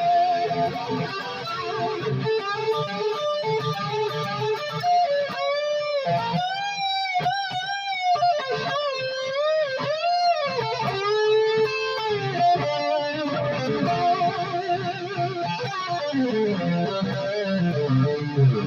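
Electric guitar, a B.C.Rich Mockingbird rebuilt into an Explorer shape, played solo with single-note lead lines. In the middle stretch the notes bend and waver in pitch.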